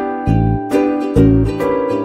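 Background music: a bright tune of plucked notes over a bass line that changes about every half second.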